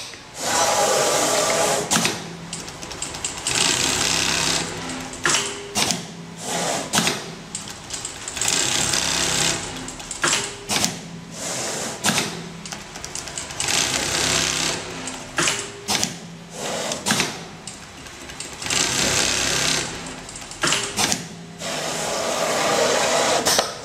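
Automatic pattern sewing machine stitching velcro flaps through a clear plastic template: runs of fast stitching a second or two long that stop and start again many times as the head moves from seam to seam.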